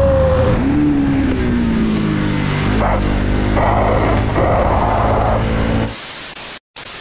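Motorcycle engine running on the move, its pitch slowly falling in the first couple of seconds, with bursts of rushing noise. About six seconds in it cuts off abruptly to a steady hiss.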